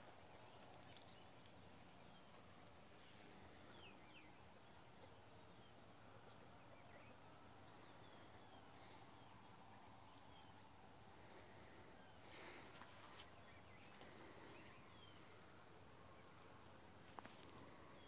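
Faint rural dawn ambience: a steady high-pitched insect trill with scattered faint bird chirps, and one brief louder noise about twelve seconds in.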